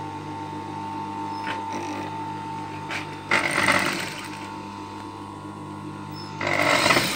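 Sewing machine stitching in two short runs, each under a second, about three seconds and six and a half seconds in, over a steady motor hum.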